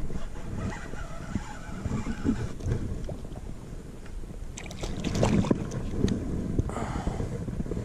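Wind rumbling on the kayak-mounted camera's microphone, with handling knocks as the angler's arm and hands work the rod close to it while fighting a hooked bass. A few short, sharp noises come about five seconds in and again near the end.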